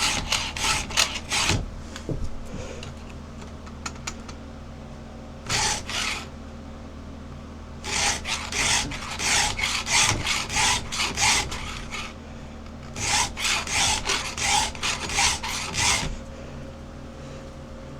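Oregon saw chain being hand-filed with a Husqvarna 2-in-1 file guide: quick rasping file strokes across the cutters in four runs, several strokes a second, with short pauses between teeth.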